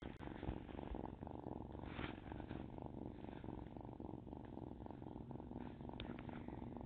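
Kitten purring steadily, heard from very close up.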